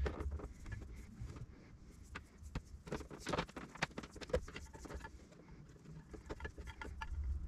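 Faint, irregular small clicks and taps of hands handling a jet ski's plastic valve cover and its rubber gasket while the gasket is being coated with oil.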